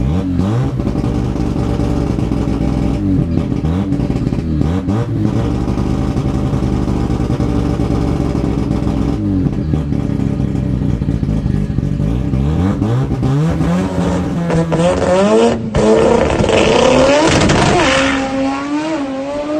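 Mazda 13B rotary engine of an RX2 drag car at full throttle, heard from inside the cockpit, its pitch climbing and dropping back several times as the air-shifted gearbox changes gear. About fifteen seconds in, the sound switches to trackside, louder and still rising in pitch, then falls away.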